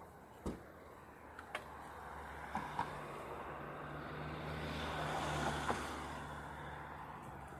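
A car driving past on the road beside the pavement, its engine hum and tyre noise growing to a peak about five seconds in, then fading. A few light knocks sound along with it.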